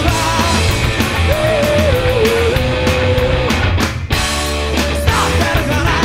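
Loud live garage-punk rock band: distorted electric guitars, bass and drums playing together, with a long held, wavering note in the middle and a brief break about four seconds in. Vocals come in near the end.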